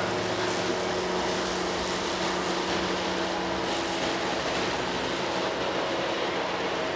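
Farm tractor's diesel engine running steadily as it drives. A low, even hum in the engine note fades out about halfway through.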